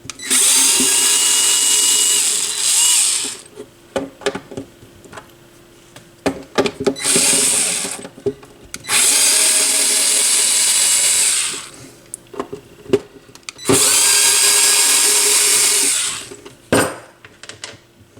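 Cordless drill-driver spinning out screws in four short runs of about one to three seconds each, with small clicks and knocks of handling between them.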